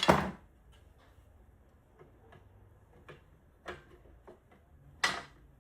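Handling clicks and knocks of the workstation's rear cover being picked up and slid back over the back panel: a sharp knock at the start, a few faint ticks, and another sharp knock about five seconds in.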